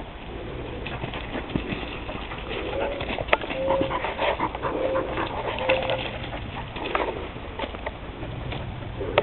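Dogs sniffing and moving about in leaf litter close by. Through the middle come four short, low, level-pitched calls about a second apart.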